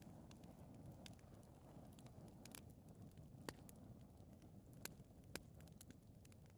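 Fireplace fire burning faintly: a low steady rumble of flame with scattered sharp crackles, about five of them louder.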